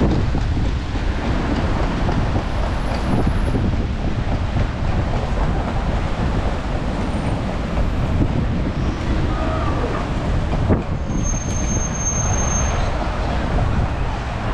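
Steady rumble of city street traffic, with a brief high-pitched squeal about eleven seconds in.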